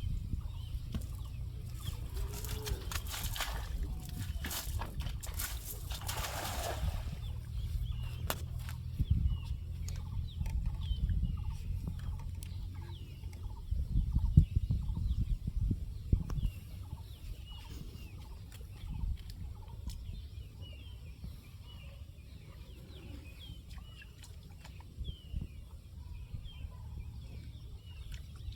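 Chickens clucking, with many short calls scattered throughout over a steady low rumble. A burst of sharp noisy clatter comes a few seconds in.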